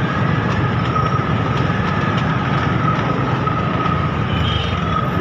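Dense motorcycle and scooter traffic at close range: engines idling and running in a jam, with a steady high-pitched whine.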